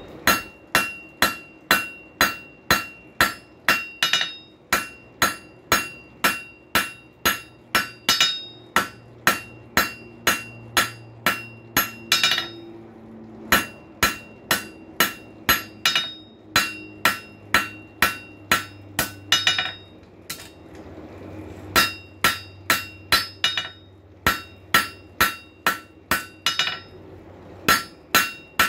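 Hand hammer forging a hot steel rail spike on an anvil, about two to three blows a second in long runs broken by two short pauses, with a ringing note carrying through the blows. The smith is drawing out the split spike's rectangular section to square it up.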